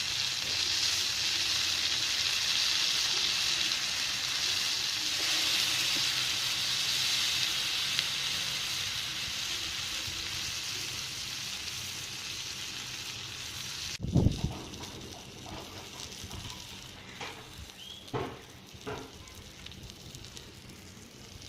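Pieces of big fish frying in hot oil, a steady sizzle that cuts off abruptly about two-thirds of the way in. A low thump follows, then a few short knocks.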